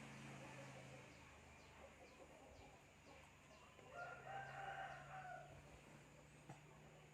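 Mostly near silence over a low steady hum. About four seconds in comes a faint, drawn-out call that holds one pitch for about a second and a half.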